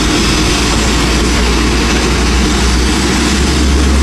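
Steady jet noise from a Lion Air Airbus A330-900neo on the ground, a continuous rush and hiss over a low rumble that grows a little stronger toward the end.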